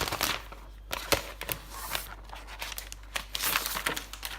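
Protective wrapping being pulled off a new MacBook Pro laptop by hand: irregular crinkling and tearing rustles in several bunches, the loudest near the start and again about three and a half seconds in.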